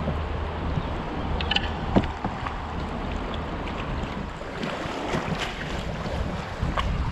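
Flowing river water around a tandem open canoe, with a few short paddle splashes and wind rumbling on the camera microphone.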